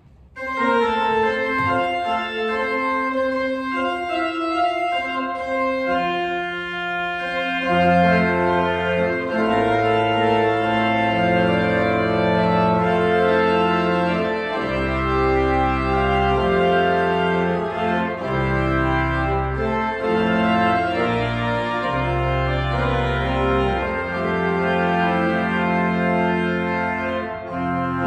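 Organ postlude: sustained chords played on a church organ, with deep pedal bass notes coming in about eight seconds in.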